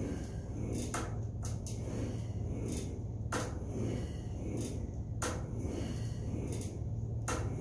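A person doing crunches on a Total Gym: short, sharp sounds come about every one to two seconds with each rep, over a steady low hum.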